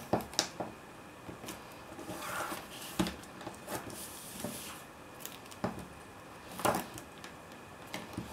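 Double-sided tape being laid along the edge of a piece of paper-covered greyboard and pressed down by hand: soft scattered taps and paper rustles, with a short scratchy hiss about two seconds in.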